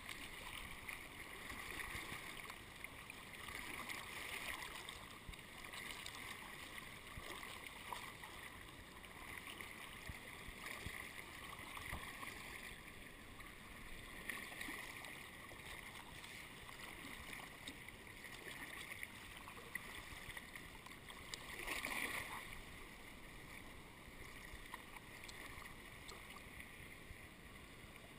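Kayak paddle strokes through calm seawater, a soft swish about every two seconds, with small water sounds around the hull. One louder splash comes toward the end.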